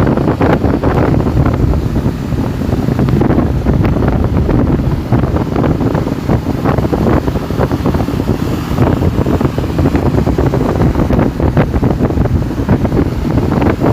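Strong wind buffeting the microphone: a loud, low, gusty rush with irregular pops throughout.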